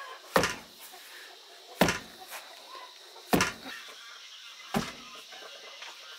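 Long wooden pestle pounding rice into flour in a mortar sunk in the floor: four dull thuds, evenly spaced about a second and a half apart.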